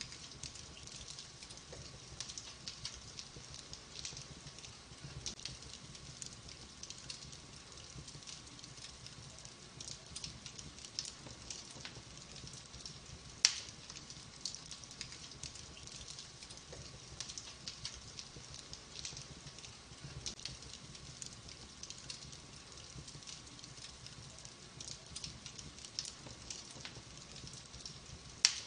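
Wood fire crackling in a fireplace: a steady run of small crackles over a soft hiss, with a sharp, louder pop about halfway through and another near the end.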